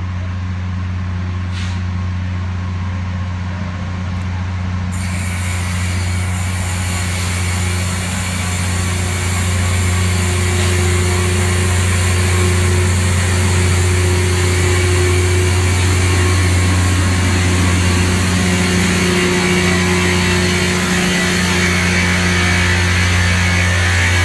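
Loram rail grinder train's diesel engines running with a steady low drone as the train rolls past close by. A loud hiss sets in suddenly about five seconds in and the sound grows louder as the train draws alongside.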